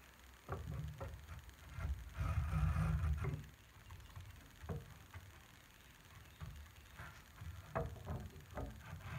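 Lie-Nielsen 60-1/2 rabbeting block plane taking short chamfering strokes on the edge of a hardwood chair leg: a series of brief scrapes and light knocks. A longer, louder bout of rustling handling noise comes about two to three seconds in.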